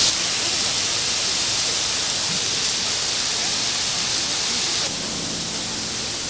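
Chicken and chicken-heart skewers sizzling steadily on hot flat griddles, a continuous hiss that drops a little quieter about five seconds in.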